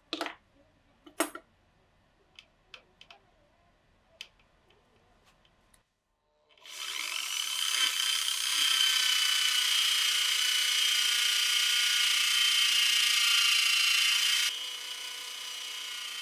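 A few light clicks and taps, then about six and a half seconds in an angle grinder fitted with a buffing pad starts up and runs with a steady high whine while a steel blade is polished against the spinning pad. Near the end the whine drops to a lower level.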